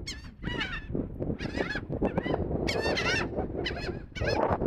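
Seagulls calling, several birds giving repeated harsh cries in four bursts about a second apart, over low wind rumble on the microphone.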